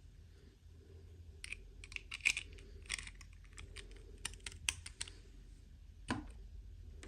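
Irregular light clicks and taps of small plastic toy pieces and packaging being handled, busiest in the middle, with one sharper click near the end.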